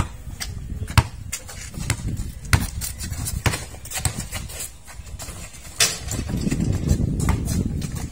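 A basketball is dribbled on an outdoor concrete court: sharp, irregularly spaced thuds mixed with players' footsteps. A low rumble swells for a couple of seconds about six seconds in.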